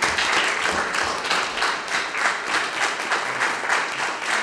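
A group of people applauding, many hands clapping at once in a dense, steady patter.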